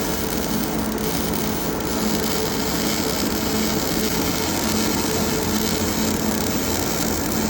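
Metal-turning lathe running steadily while machining a hub, a continuous noise with a low hum.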